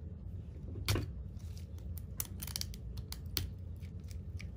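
Scalpel cutting at the nasal septum of a preserved dog head specimen: a run of sharp clicks and snips, the loudest about a second in.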